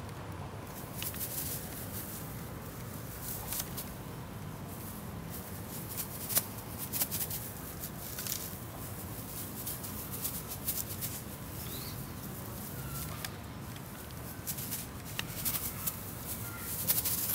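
Scattered light clicks and crackles as a kitten scrabbles on a wicker chair seat and a tinsel wand toy rustles against it, over a steady low background hum.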